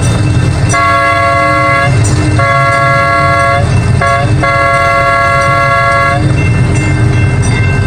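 Miniature train's horn sounding a chord of several steady notes in two long blasts, one short and one long: the standard grade-crossing signal. A steady low rumble runs underneath.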